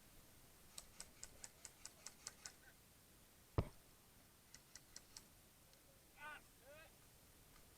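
Near silence, broken by faint high clicks in quick runs of about five a second, one sharp louder click or snap partway through, then two short falling chirps.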